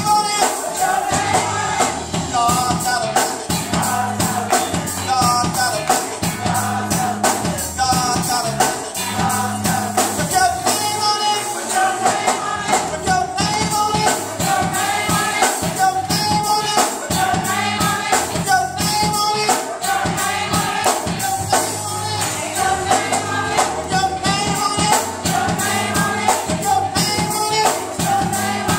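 Live gospel singing through the church microphone and speakers, with a tambourine keeping a steady beat.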